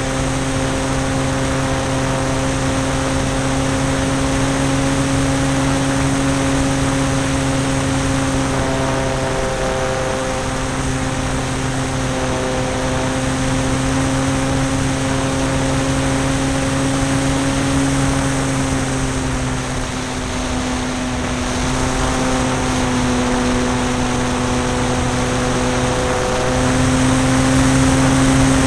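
Electric motor and propeller of an AcroMaster RC aerobatic plane running in flight, heard from a camera on the wing: a steady drone over a hiss of rushing air. Its pitch shifts slightly with the throttle a few times, dipping about twenty seconds in and rising again near the end.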